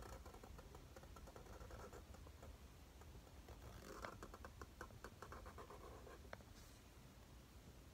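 Felt-tip marker faintly scratching across paper as a signature is written, with a quick run of short strokes about halfway through.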